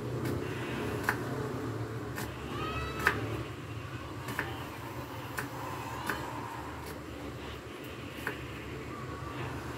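Kitchen knife slicing red onion on a wooden cutting board: a few sharp, irregularly spaced knocks of the blade on the board, the loudest about three seconds in. Faint short chirps that glide up and down sound now and then over a steady low hum.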